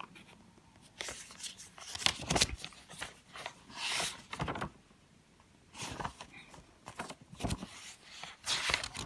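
Paper notebook pages being turned and handled, in several crackling, rustling bursts with short pauses between.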